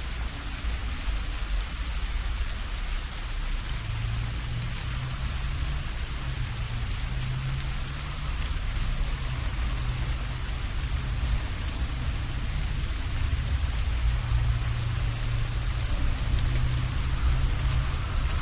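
Steady rain falling on surfaces and dripping from the leaves of a rowan tree overhead during a thunderstorm, with a low rumble underneath that grows a little from about four seconds in.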